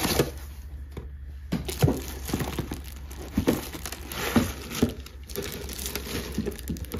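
Packing materials being handled: foam and cardboard scuffing, then a clear plastic bag crinkling as the wrapped unit is lifted out of its box. The sound comes as a string of irregular rustles and light knocks.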